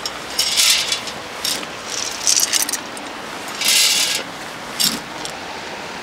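Wood pellets burning in a steel secondary-combustion fire pit, still in the early burn before secondary combustion starts: a steady rushing noise with several short bursts of hissing crackle.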